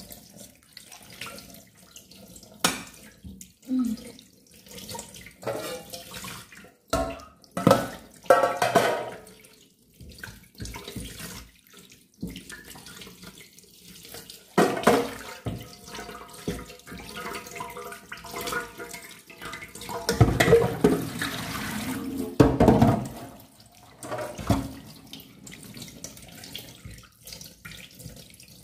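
Tap water running into a steel pot in a stainless steel sink while raw chicken pieces are rubbed and rinsed by hand, with uneven splashing that swells and falls in bursts.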